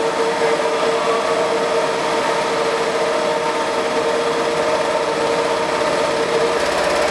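Textile quilt-seaming production line running: a steady mechanical hum with a few held tones. The sound shifts slightly near the end.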